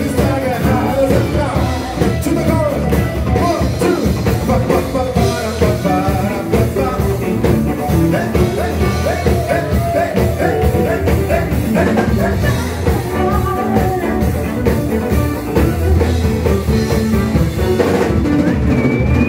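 Live rock band playing: electric guitars and drums with singers, a steady driving beat throughout.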